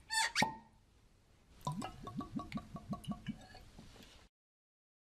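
Short intro sound effect: a quick sweeping sound, then a run of about eight short rising plops, about five a second, cut off abruptly about four seconds in.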